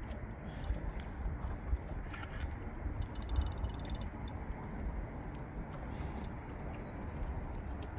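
Steady low rumble with scattered clicks, and a brief run of rapid clicking about three seconds in from a Penn Authority 5500 spinning reel under load from a hooked catfish.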